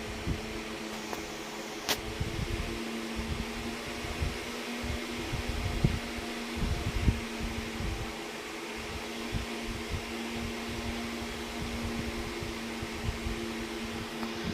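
Steady motor hum with a few steady tones, like a running fan, over irregular low bumps, with one sharp click about two seconds in.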